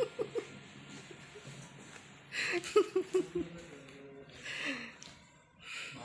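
A man laughing: a short chuckle at the start, then a breathy burst of several quick laughs about two and a half seconds in.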